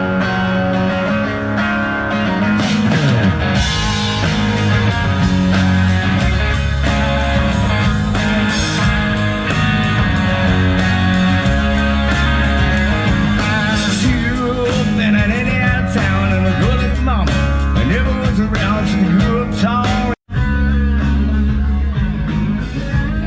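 Rock music with guitar, steady and loud, cutting out for an instant about twenty seconds in.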